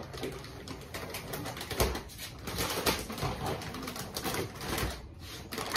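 Adhesive vinyl wrap being peeled off a car's door panel: an irregular crackling and ripping as the film pulls away from the paint.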